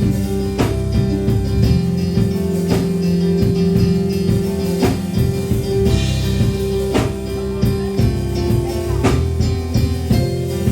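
Worship band playing a slow gospel song between sung lines: held chords with guitar, and a drum hit about every two seconds.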